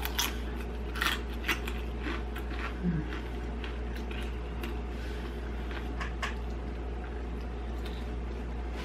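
Tortilla chips being crunched while chewing close to the microphone: several crisp crunches in the first three seconds, then a few more around the middle. A steady low hum runs underneath.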